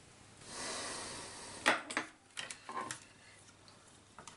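Handling noise from the opened plastic casing and circuit board of a Casio DH-100 digital horn: a short rush of noise, then a quick run of clicks and knocks as the board is moved.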